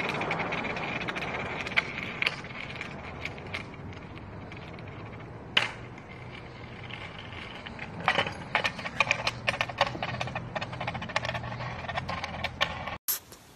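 Skateboard wheels rolling on concrete with a steady rumble, mixed with scattered clicks and rattles that come thicker in the second half. The sound cuts off suddenly near the end.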